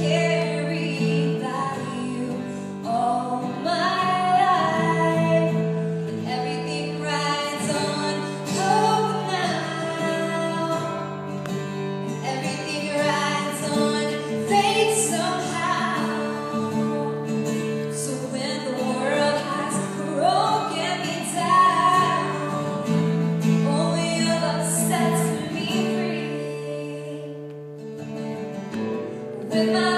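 A woman singing live to acoustic guitar, with a keyboard holding long sustained notes underneath.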